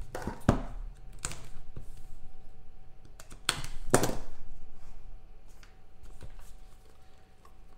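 Small trading-card boxes handled and set down on a table: scattered taps and knocks with handling rustle between them. The loudest clatter comes about three and a half to four seconds in, and it grows quieter after that.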